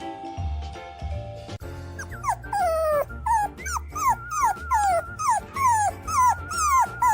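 Background music with a steady bass beat; about one and a half seconds in, a dog starts a run of short high cries, each sliding down in pitch, about two a second.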